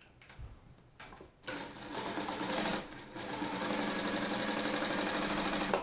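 NMD-2530D heavy-duty walking-foot zigzag industrial sewing machine, driven by its built-in motor, stitching through four layers of thick leather. It starts about a second and a half in, pauses briefly near the middle, and runs again until it stops at the end.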